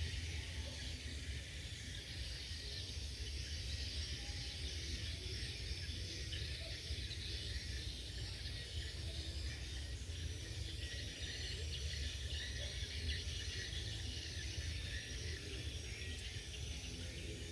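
Steady rain on a tin roof, an even patter with a low rumble underneath and no single loud crack.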